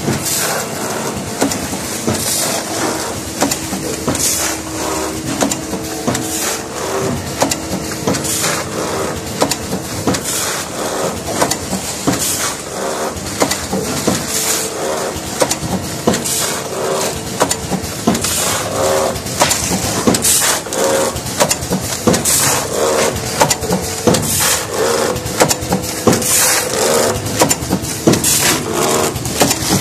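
Vertical tea bag packing machine running: a loud, continuous mechanical clatter of repeated knocks and clicks.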